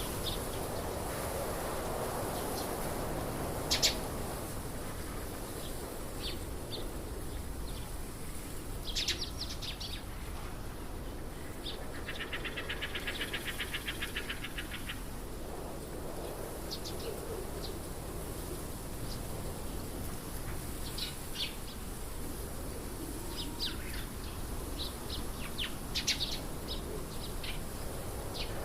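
Birds chirping in short, scattered calls over a steady outdoor background, with a rapid, evenly pulsed trill lasting about three seconds near the middle.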